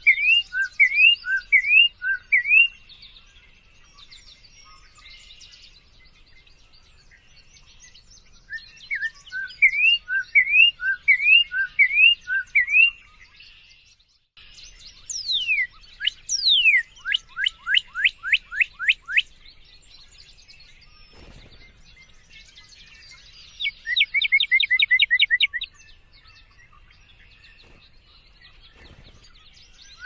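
Northern cardinal singing: phrases of clear slurred whistles repeated about twice a second, with pauses of several seconds between phrases. About halfway through it gives a long falling whistle followed by a quick run of short downslurred notes, and near the end a fast trill.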